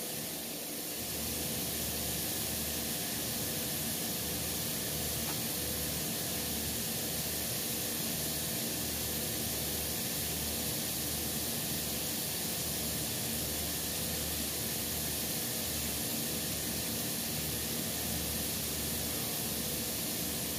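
Steady hissing noise, with a low hum that cuts in and out every second or so.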